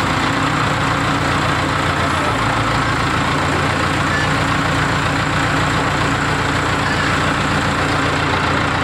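Heavy vehicle engine running steadily at a constant speed, as when a crane lowers a load onto a truck.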